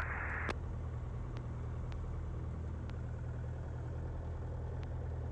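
Piston engine of a Grumman light airplane idling on the ground, a steady low drone heard through the cockpit intercom audio. A band of radio hiss cuts off with a click about half a second in, and a few faint clicks follow.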